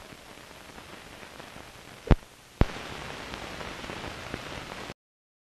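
Low hiss and crackle of an old kinescope film soundtrack with no program sound. Two sharp pops about half a second apart come a couple of seconds in, the hiss is a little louder after the second one, and the sound cuts off abruptly just before the end.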